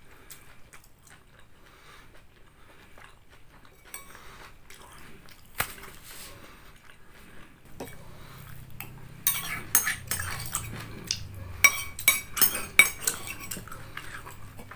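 A metal spoon clinking and scraping against a ceramic bowl while scooping up the last of the chicken noodles from the nearly empty bowl. There are only a few scattered clinks at first, then a quick run of clinks and scrapes over the second half.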